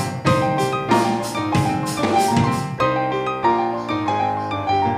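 Instrumental music: piano chords over a steady drum beat. The drums stop a little past halfway, leaving the piano playing alone.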